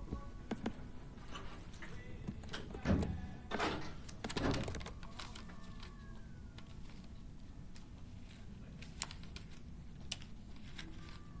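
Scattered clicks of laptop keyboard typing, with a few louder thumps about three to four and a half seconds in, over low classroom room noise.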